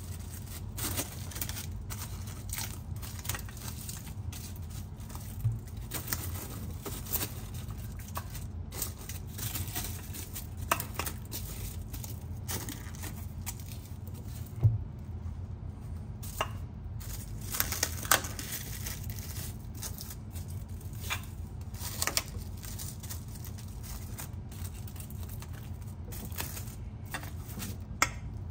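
Press-and-seal plastic wrap crinkling and crackling in short irregular bursts as it is pressed down and smoothed around the rim of a baking dish to make a tight seal.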